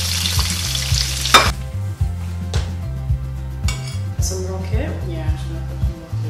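Sea bass fillet sizzling as it fries skin-down in hot olive oil and butter in a frying pan, cut off abruptly about a second and a half in. Then a steady low bass line of background music with a few light clinks.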